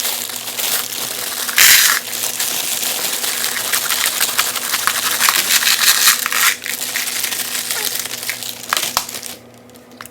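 M&M candies pouring into a plastic candy dispenser, a dense clatter of many small hard pieces, with a louder rush just under two seconds in; the pouring stops shortly before the end.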